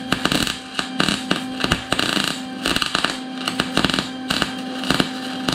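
Welding arc crackling steadily as a bead is laid around the joint of a shortened steel driveshaft tube, with a steady electrical hum underneath.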